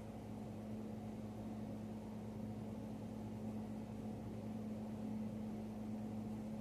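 A steady low mechanical hum with a constant drone.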